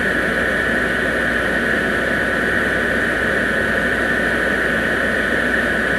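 Electric blower fan of a plugged-in Christmas inflatable running steadily, a constant loud drone with a high whine held at one pitch.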